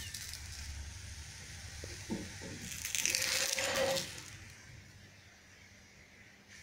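A spatula scraping against a hot tawa as it slides under a cooked chapati, a brief rasp about three seconds in, over a faint low hum.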